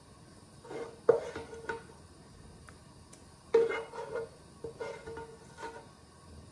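Wooden spatula knocking and scraping against a non-stick frying pan as fried potatoes are scraped out of it, with a short ring from the pan after the hardest knocks. There are two runs of strokes, one about a second in and another from about three and a half seconds in.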